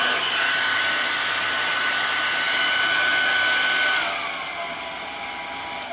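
Remington hair dryer blowing with a steady high whine and rushing air. About four seconds in it is switched off, and the whine falls as the fan motor spins down, with a click near the end.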